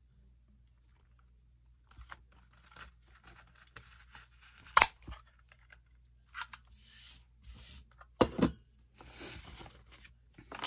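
Paper pockets being handled and slid about on a cutting mat, with rustling and scraping. Sharp clacks cut through, one about five seconds in and a double clack a little after eight seconds. The first two seconds are nearly silent.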